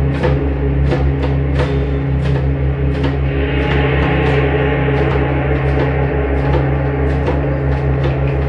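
Live band music: drum strokes at a steady beat over held low bass notes, with a brighter wash swelling in about three seconds in and fading by the fifth second.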